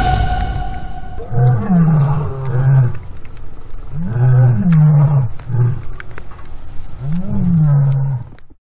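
A lion roaring three times, each a long call of about a second and a half that rises and then falls, about three seconds apart, over the crackle of a wood fire. Music fades out in the first second, and all sound cuts off shortly before the end.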